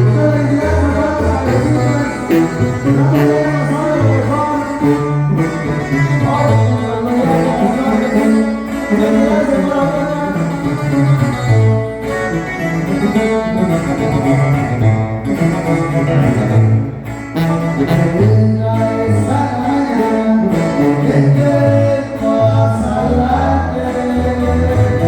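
Live tuba band music: a tuba plays a bouncing bass line that steps from note to note, under a steady melody from the rest of the band.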